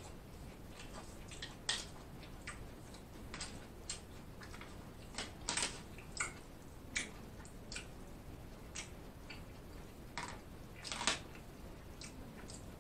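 Close-up eating sounds: wet mouth smacks and chewing clicks, short and irregular, with a louder cluster about halfway through and another near the end.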